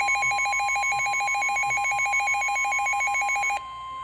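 Weather radio alert alarm sounding for a severe thunderstorm warning: a rapid warbling tone, about a dozen pulses a second, over a steady high tone. The warble cuts off suddenly near the end, leaving the steady tone.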